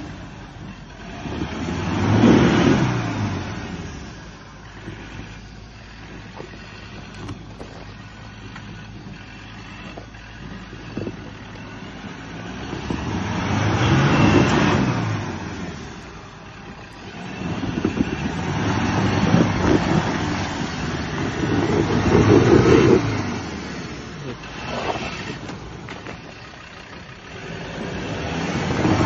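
Troller T4 4x4 engine revving in bursts as it crawls over a steep, rutted dirt trail, the revs climbing and falling several times, with a quieter stretch early on and the longest burst about two-thirds of the way through.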